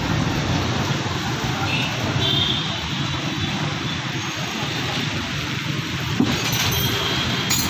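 Steady low rumble of outdoor street noise, with no clear engine note in it.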